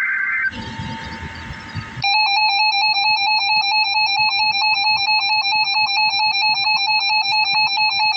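Emergency Alert System audio: the tail of a warbling digital SAME header burst, then about a second and a half of static, then a loud electronic attention tone beeping rapidly, about four beeps a second, starting about two seconds in and running on.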